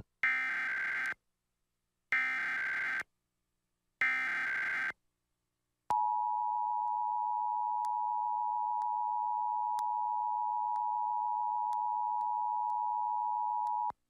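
Emergency Alert System test alert: three short bursts of SAME header data tones, each about a second long and a second apart. These are followed by the EAS two-tone attention signal (853 and 960 Hz sounded together), a steady tone held for about eight seconds, opening a Required Monthly Test.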